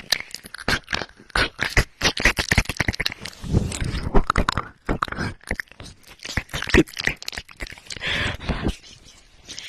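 Close-up ASMR mouth sounds pressed against a microphone: a dense run of wet clicks, smacks and nibbling sounds.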